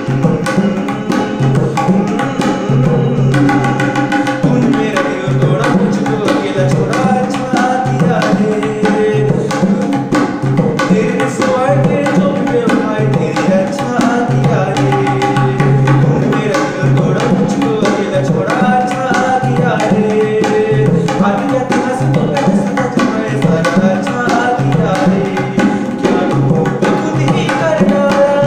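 A man singing a song while accompanying himself on tabla, the two hand drums struck in a quick, continuous rhythm under the melody.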